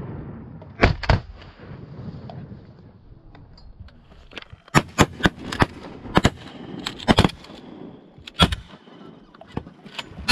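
Shotguns from two or more duck hunters firing at passing ducks: a dozen or so sharp blasts in irregular succession. Two come about a second in, then a rapid run between about four and a half and seven and a half seconds, and a few more near the end.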